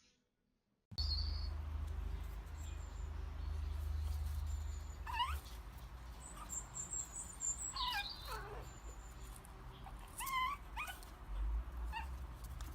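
A dog whining: short, high, wavering whines in small groups a couple of seconds apart, over a low steady rumble.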